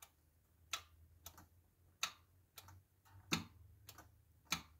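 Caterpillar RP12000E generator's electronic fuel shutoff solenoid clicking as it is switched on and off: about seven sharp, separate clicks, roughly one every half second. An audible click like this shows the solenoid is working.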